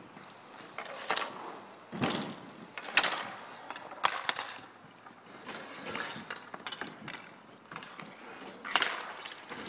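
Inline skate wheels rolling on an asphalt rink, broken by sharp, irregular clacks of hockey sticks and puck. A heavier thump comes about two seconds in.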